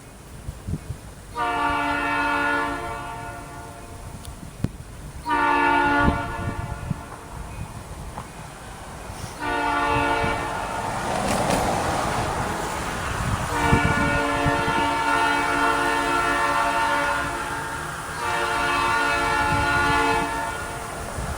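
Canadian National diesel locomotive's air horn sounding the grade-crossing signal: two long blasts, a short one, then a long held blast, followed by another blast near the end. The low rumble of the passing train runs beneath, with a noisy rush between the third and fourth blasts.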